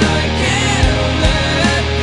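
Rock music with a steady drum beat under sustained chords and a wavering melodic line.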